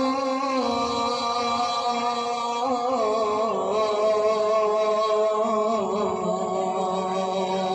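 A child's voice singing long, drawn-out notes through a stage loudspeaker system. The pitch steps down about three seconds in and then wavers in slow, ornamented turns, in the manner of a devotional chant.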